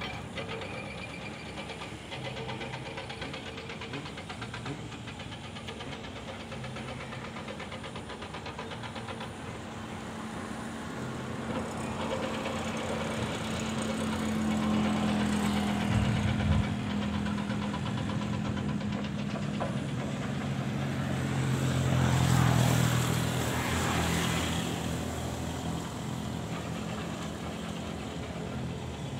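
Motor-vehicle engines running: a steady engine hum that swells louder twice, around the middle and again about three-quarters of the way through, as vehicles go by.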